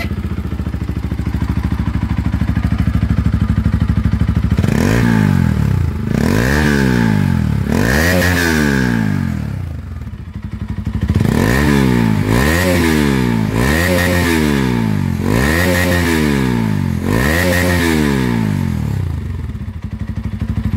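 Bajaj Pulsar RS200's single-cylinder engine running without its silencer, out of an open exhaust pipe: it idles, then is blipped about ten times, each rev rising and falling roughly once a second, before dropping back to idle near the end. Without the silencer it is not very loud.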